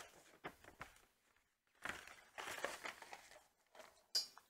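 Paper rustling as a glossy instruction booklet is handled and opened on a tabletop, with a few light clicks and a sharper, crisp page rustle a little after four seconds in.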